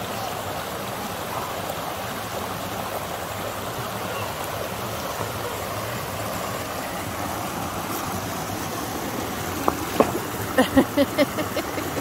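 Steady rushing of a shallow creek spilling over small rock cascades. About ten seconds in, a quick run of short, sharp knocks rises above it.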